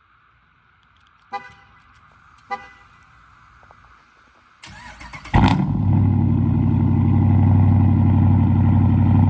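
Cold start of a Jeep's Hemi V8: two short horn chirps, then the starter cranks briefly and the engine catches with a loud burst about five seconds in and settles into a steady, loud high idle.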